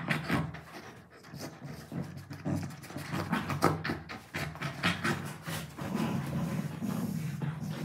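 A Labrador retriever and a German Shepherd puppy panting while they mouth and tug at a fabric pillow, with irregular rustling and scuffing of the pillow and of paws on the bedsheet.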